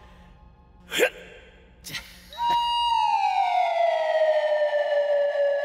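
A short sharp sound, then a loud whistle-like tone that glides down from high and settles on a lower held pitch. It is a stage sound effect for a stone flung across the night sky to become a shooting star.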